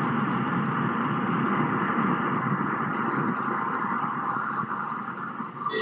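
Steady road and tyre noise of a car cruising at about 80 km/h, heard inside the cabin through the dashcam's microphone, easing slightly toward the end as the car begins to slow. A short knock comes right at the end.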